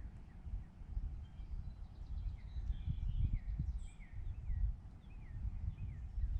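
Wild birds chirping, a long run of short quick slurred calls repeated many times, over a steady low rumble.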